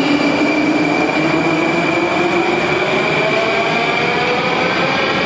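Moscow metro train pulling out of the platform and accelerating: its motor whine rises slowly in pitch over the steady running noise of the cars.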